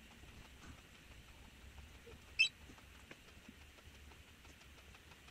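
Quiet room tone with faint scattered ticks, and one brief high-pitched squeak about two and a half seconds in.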